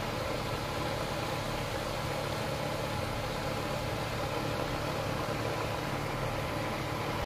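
Air-conditioning units running outside: a steady mechanical hum under fan noise.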